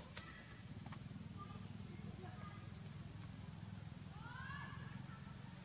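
Steady, high-pitched insect chorus of cicadas or crickets, with faint scattered chirps and a short rising-and-falling call about four seconds in.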